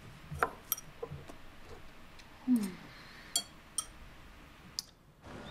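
Quiet room with a few scattered light clicks and ticks, and a short low sound falling in pitch about halfway through. Soft steady music comes in near the end.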